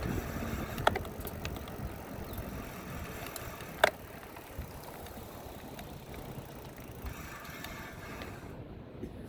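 E-bike being ridden: steady road and wind noise with scattered rattling clicks, a sharp click about a second in and a louder clack about four seconds in.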